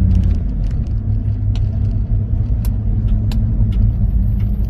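Steady low rumble of a car driving at about 50 km/h, as heard from inside its cabin: tyre and engine noise, with a few faint clicks.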